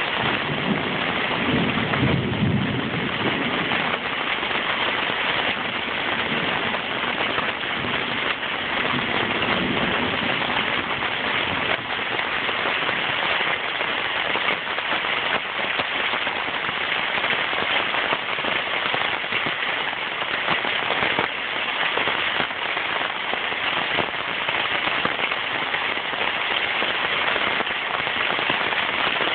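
Heavy rain falling steadily in a downpour, a dense even hiss. A low rumble of thunder dies away in the first few seconds.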